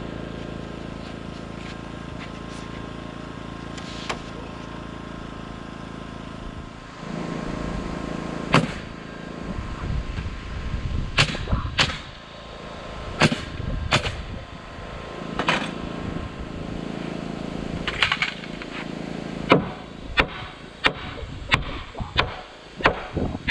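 Nails being driven into framing lumber: about a dozen sharp, cracking strikes that begin about a third of the way in, irregular at first, then settling into a steady pace of roughly one every 0.7 s near the end, over a steady low background drone.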